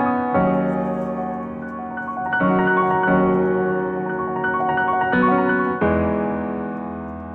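Background piano music: slow chords struck every couple of seconds and left to ring, fading near the end.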